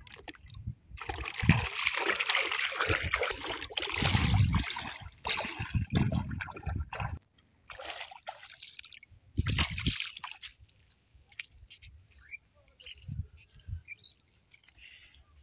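Feet wading through shallow river water, splashing and sloshing for several seconds, then a few separate splashes, dying away to faint small sounds near the end.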